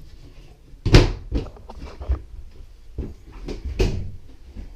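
Cabinet and closet doors being opened and shut: a few sharp knocks and clicks, the loudest about a second in.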